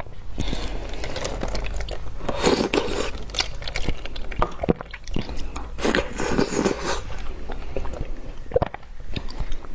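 Ice frozen in a bottle being bitten and chewed: irregular crunching and cracking throughout.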